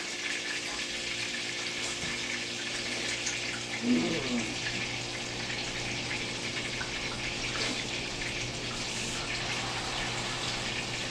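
Deer burgers frying in hot grease in a pan, a steady sizzle.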